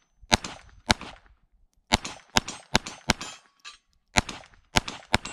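Browning Buck Mark .22 LR pistol firing about nine sharp shots in an uneven string, some in quick pairs and a fast run of four.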